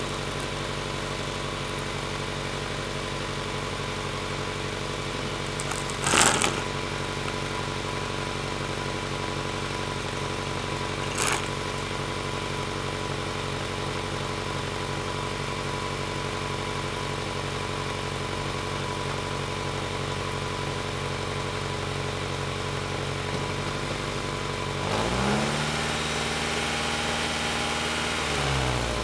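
Honda H22A 2.2-litre four-cylinder engine in a 1995 Civic, idling steadily while it warms up after a cold start, heard from under the car beside the exhaust pipe. Brief clicks come about six and eleven seconds in. Near the end the engine is revved up and held at higher revs for a few seconds, then drops back toward idle.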